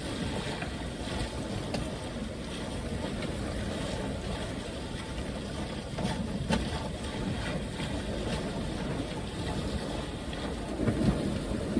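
Wind and water rushing past a sailboat under sail, a steady noise with a few faint knocks scattered through it.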